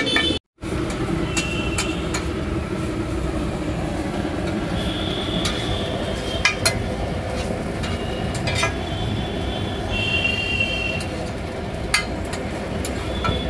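Metal spatulas scraping and clinking on a flat iron griddle as noodles are stir-fried, with short high squeals and sharp clinks over a steady background din. The sound cuts out for a moment just after the start.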